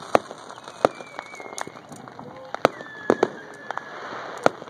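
Consumer fireworks going off all around: about six sharp, loud bangs at irregular intervals, including aerial shell bursts.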